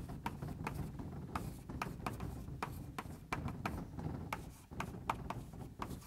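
Handwriting on a surface: irregular sharp taps and strokes, about three or four a second, over a steady low room hum.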